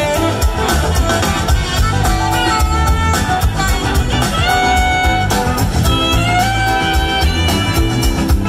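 Live band music: a saxophone solo with long held notes that slide up into pitch, over a steady drum beat, electric guitars and bass.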